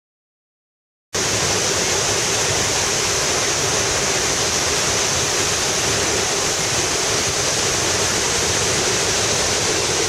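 Steady rush of water from La Fortuna waterfall and the rocky river below it, starting suddenly about a second in after a moment of silence.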